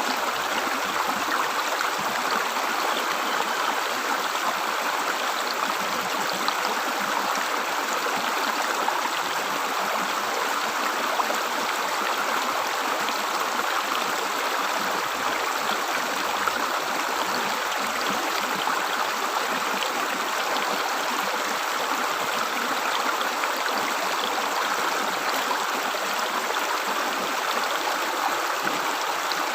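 River water gurgling and splashing over rocks in a steady, unbroken rush.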